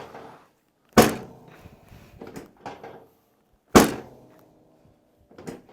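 Chiropractic drop table: a padded section is thrust down and drops onto its stop with a sharp thunk, twice, about a second in and again near four seconds, each followed by a short rattle.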